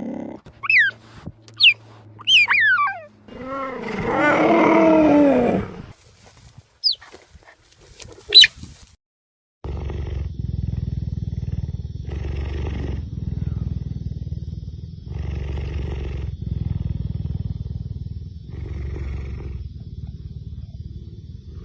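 Cheetah calls: several short, high chirps falling in pitch, then a longer pitched yowl and two more brief chirps. From about ten seconds in comes a long, low, continuous purring rumble that swells every few seconds.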